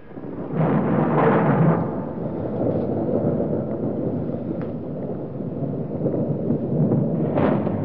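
A sustained low rumbling noise, swelling about half a second in and again near the end.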